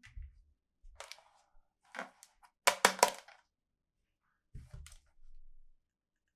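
Plastic toys and packaging being handled, with a string of clicks and knocks. The loudest part is a quick run of three sharp cracks about halfway through, and there are dull thumps at the start and near the end.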